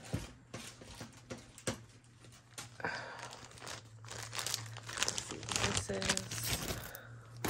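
Plastic zip-top bags crinkling and rustling in irregular bursts as they are handled.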